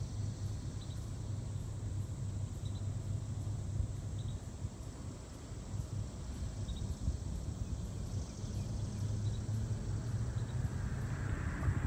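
Distant diesel freight locomotives running as a train approaches: a low, steady hum, with a rushing noise building near the end. Faint insects chirp at intervals.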